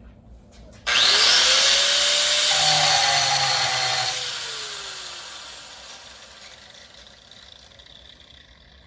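Electric angle grinder switched on and spinning up with a rising whine about a second in, grinding for about three seconds, then switched off and winding down, its pitch falling and the noise fading over several seconds.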